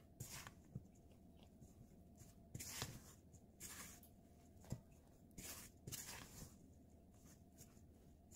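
Silicone spatula stirring and scraping a crumbly flour dough around a stainless steel bowl, working in an egg: short, irregular strokes with a couple of sharp clicks of the spatula against the bowl.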